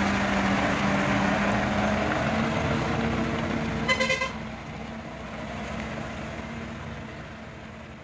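Ashok Leyland dump truck's diesel engine running as it pulls away up a dirt track, growing steadily quieter. About four seconds in, a vehicle horn gives a short toot of two or three quick beeps.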